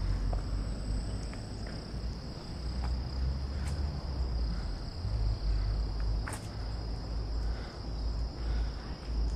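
A chorus of insects keeping up a steady, high-pitched drone, over a low rumble and a few sharp ticks.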